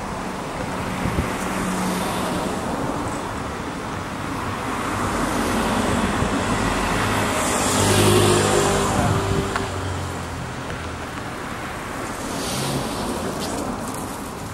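Cars driving past one after another on a narrow street, engine hum and tyre noise swelling loudest as one passes close about eight seconds in, with a smaller swell near the end.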